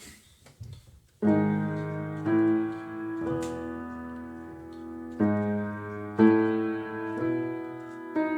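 Background piano music: sustained chords that change about once a second, starting about a second in.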